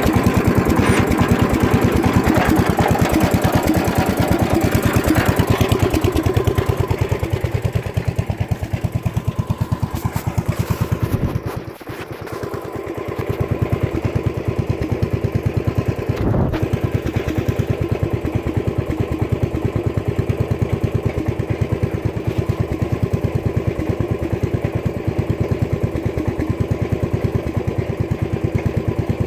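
Wheel Horse Raider 10 garden tractor's single-cylinder Kohler engine idling with a steady, rapid firing beat. It drops in loudness briefly near the middle, and a single knock comes a few seconds later.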